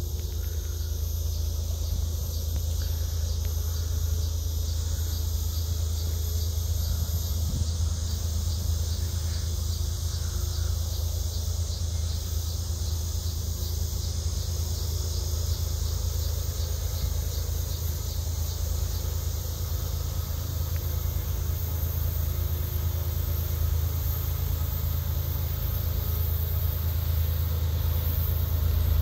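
Steady low rumble of the diesel locomotives on an approaching CSX freight train, growing a little louder near the end, with insects chirping in the grass.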